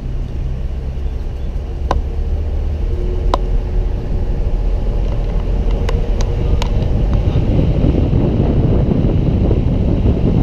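Car driving, heard from inside: a steady low road and engine rumble that gets louder about two seconds in and turns to a rougher rushing noise in the second half, with a few light clicks scattered through.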